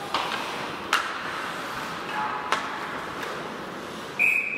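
Sharp clacks of hockey sticks and puck on the ice, three of them, then about four seconds in a referee's whistle blows a loud, steady, shrill note that stops play after a scramble at the net.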